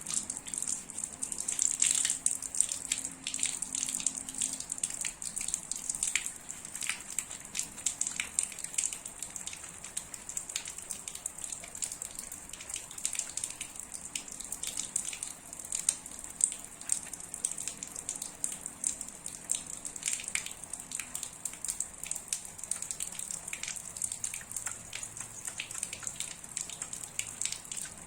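Water running from a tap and splashing onto hands, a steady hiss broken by many small irregular spatters.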